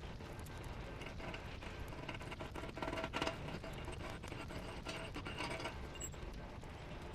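Electric welding arc on steel, crackling steadily with dense fine clicks, a little louder about three seconds in.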